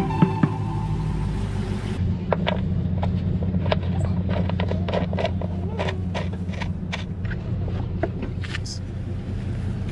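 A vehicle engine idling steadily, with scattered small clicks and knocks from hands fitting a boat's hull drain plug and unhooking the metal hooks of a transom tie-down strap.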